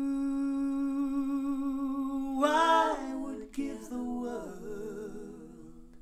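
Recorded female vocal music played over a FEZZ Audio Mira Ceti 300B single-ended tube amplifier and Harbeth SHL5+ speakers, picked up by a microphone in the room. One long held sung note, a short wavering phrase about two and a half seconds in, then a falling line of notes that fades away near the end.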